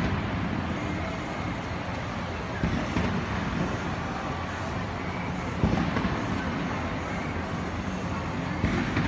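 Fireworks shells bursting in the distance: a few low booms, about three seconds in, just under six seconds in and near the end, over a steady background rumble.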